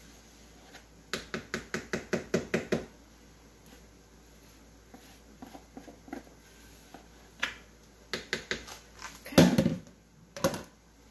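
A bowl being knocked to shake out its contents: a quick run of about ten knocks a second in, scattered knocks later, and a louder dull thump near the end.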